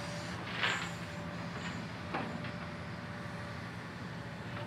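Heavy diesel earthmoving equipment running steadily, a Hitachi 870 excavator working a haul-truck loading face, with a short rushing burst about half a second in and a smaller one about two seconds in.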